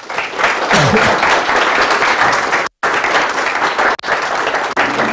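Audience applauding at the end of a talk: a dense, steady clapping that cuts out for a split second about halfway through.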